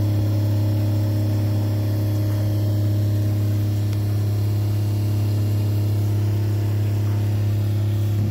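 A loud, steady mechanical hum: a strong low drone with several fainter, higher steady tones above it, unchanging throughout.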